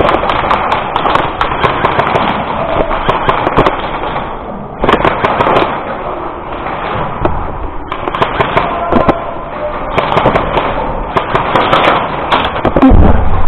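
Airsoft guns firing: many sharp, irregular cracks and rattling bursts, echoing in a large indoor hall, with voices underneath and a brief lull about four seconds in.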